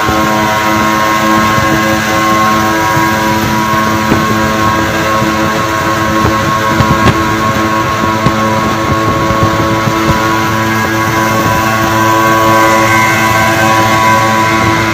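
Steady engine and road noise of vehicles running at highway speed, mixed with music that holds sustained tones throughout.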